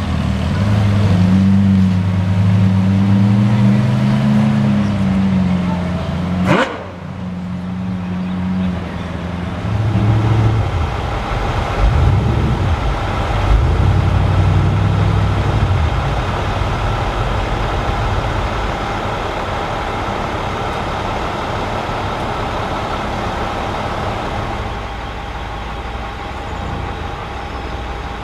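Ferrari 812 Superfast's V12 running at low revs as the car creeps along, its pitch rising and falling gently; it stops abruptly about six and a half seconds in. A lower, uneven engine rumble follows and settles into a steadier, quieter hum.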